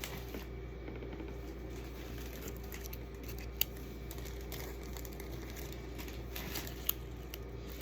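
Goodie bags being filled by hand: faint rustling with two sharp clicks, over a steady low room hum.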